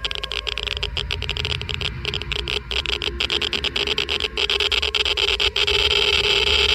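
Geiger counter crackling fast and irregularly at a high count rate, the clicks running together into a dense hiss. It gets louder and denser about halfway through.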